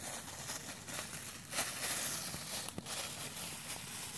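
Plastic bag crinkling and rustling as it is handled, with a few light clicks.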